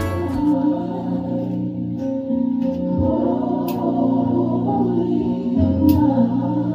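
Music from a vinyl record player, heard through the room and sounding dull, with little above the middle range. Two short sharp clicks come through, one about halfway in and one near the end.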